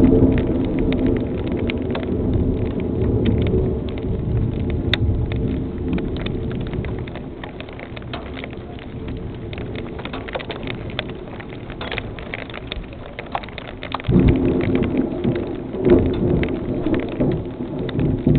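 Rain falling in a thunderstorm, with a dense patter of drops hitting close by. A roll of thunder dies away over the first few seconds, and about fourteen seconds in a fresh clap of thunder breaks in sharply and rumbles on.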